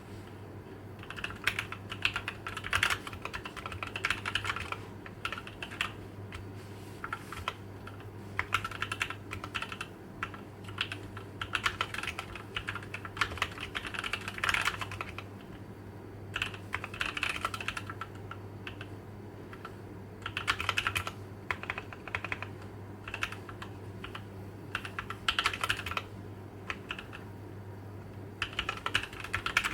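Typing on a Tokyo60 mechanical keyboard with Gateron CAP V2 Milky Yellow linear switches: quick runs of key clicks in bursts of a few seconds, with short pauses between. A steady low hum sits underneath.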